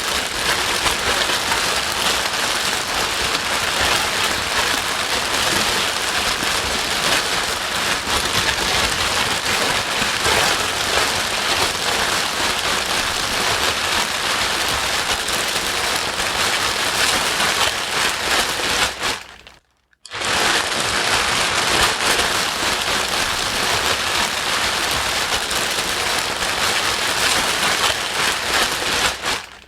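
Steady white noise, a dense rain-like hiss. It fades out to silence and back in over about a second, about two-thirds of the way in, and drops out again at the very end.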